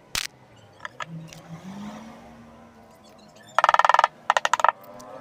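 Hand screwdriver driving a screw into the carpet-covered wooden wall of a speaker box: two short spells of rapid clicking, about three and a half seconds in, after a single sharp tap near the start.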